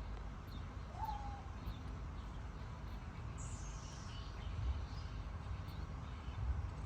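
Two short high-pitched animal chirps over a steady low rumble. The first, about a second in, rises and then dips. The second, higher and falling, comes about three and a half seconds in.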